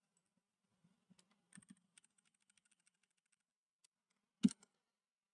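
Faint computer keyboard and mouse clicks: a run of quick light ticks, then one sharper click about four and a half seconds in.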